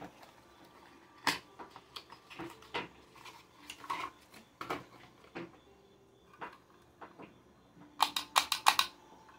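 Unboxing sounds: scattered light clicks and rustles of paper and plastic packaging being handled. Near the end comes a quick run of about six sharp plastic clicks as a small black plastic case is handled.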